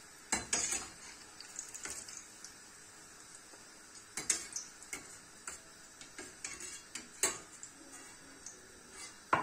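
Slotted metal spoon clinking and scraping against a steel frying pan while fried eggplant cubes are lifted out of hot oil, with faint sizzling of the oil underneath. A few sharp clinks stand out: about half a second in, around four seconds, near seven seconds and at the very end.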